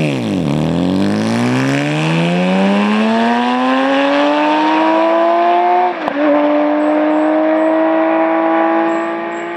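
BMW K1600's 1.6-litre inline-six engine accelerating. Its pitch dips briefly at the start, then climbs steadily for about five seconds. After a short break about six seconds in, it holds steady at higher revs.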